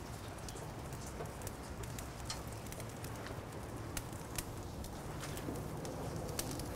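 Wagyu tri-tips sizzling as they are laid on a hot Santa Maria grill grate over lump charcoal: a steady hiss with scattered sharp crackles.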